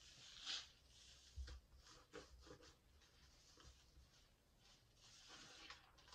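Soft wet squishing and crackling of soap foam as a lathered sponge is squeezed and rubbed between hands, in a few faint bursts.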